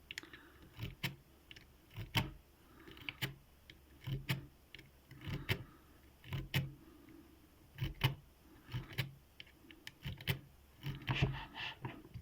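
Lock pick being zipped and raked through the pin-tumbler keyway of a 40 mm Syneco padlock: irregular sharp metal clicks, one or two a second, between brief scrapes of steel on the pins.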